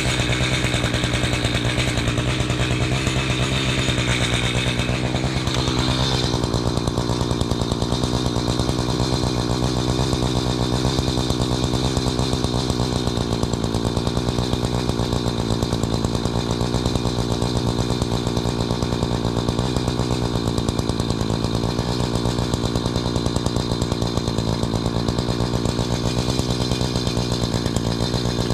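Chainsaw engine running; about six seconds in its pitch falls and it settles into a steady lower speed for the rest of the time.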